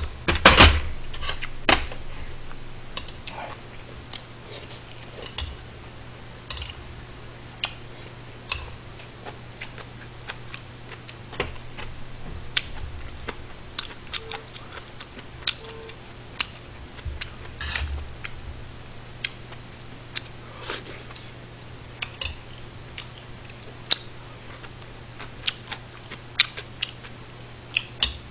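Metal spoon and chopsticks clinking and tapping against a stainless-steel rice bowl and dishes. Single sharp clicks come every second or two, a dense cluster in the first two seconds is the loudest, and a steady low hum runs underneath.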